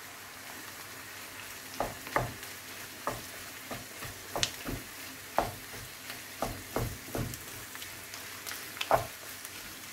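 Minced meat and onions sizzling in a frying pan while a wooden spatula stirs them, scraping and knocking against the pan in a dozen or so irregular strokes over a steady faint hiss.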